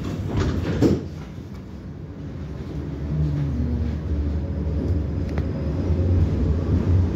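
Interior of a 71-623-02 tram pulling away from a stop: a clunk about a second in, then the traction drive's hum and a low rolling rumble that build as the tram gathers speed.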